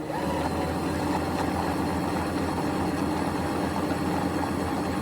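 ECOVACS Deebot X9 Pro Omni station washing the robot's roller mop with hot water: a steady mechanical hum with a low drone, as water is squirted onto the turning roller and sucked off.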